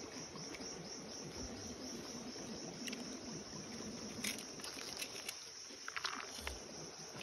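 A steady high-pitched insect chorus in rapid even pulses, with a few soft crackles of cabbage leaves being peeled and handled.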